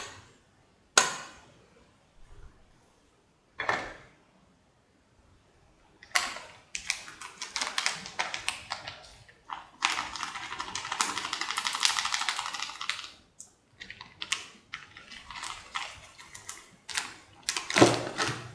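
Three separate sharp knocks in the first four seconds, then dense, irregular clicking and gritty scraping, thickest for a few seconds in the middle.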